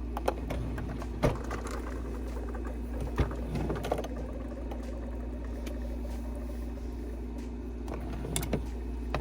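Scattered clicks and light knocks of plastic makeup containers being picked up and set down, a few of them spread over several seconds, over a steady low hum.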